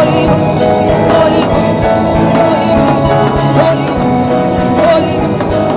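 Gospel music: a wavering sung melody over sustained instrumental chords and a steady drum beat.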